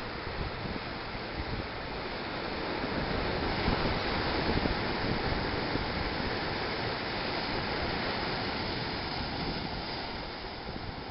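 Surf breaking and washing against a rock jetty, a steady rush of white water that swells louder about three to five seconds in and eases near the end.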